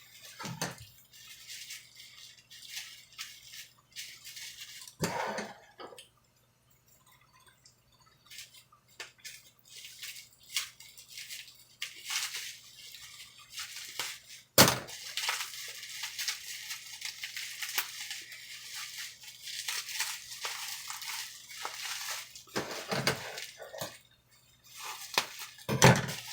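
Crinkling and rustling of plastic packaging being handled and unwrapped, in irregular bursts with short quiet pauses, and a sharp click about halfway through.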